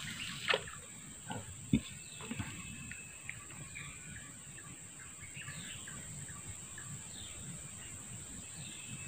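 Outdoor swamp-edge ambience: wild birds chirping repeatedly in the background over a steady high insect drone. Two short knocks come early on, the louder one just under two seconds in.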